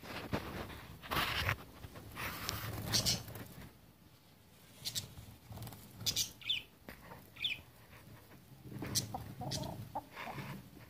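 Roosters clucking low while pecking and scuffling at a food bowl, with irregular sharp clicks and a few short, high chirps.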